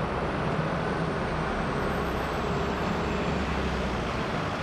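Steady low vehicle-engine rumble under an even street-noise hiss, at a constant level, as from a parked fire engine idling.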